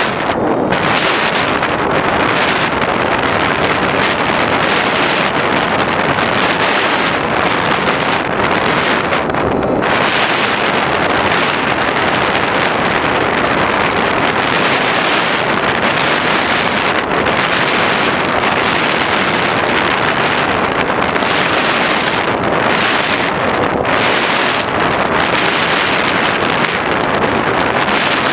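Steady, loud rush of airflow over the microphone of a GoPro riding on an FPV model plane in flight.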